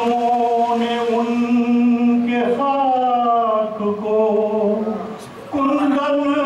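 A man singing a naat unaccompanied, drawing out long held notes with a slow downward glide in the middle and a short break about five seconds in before the next note.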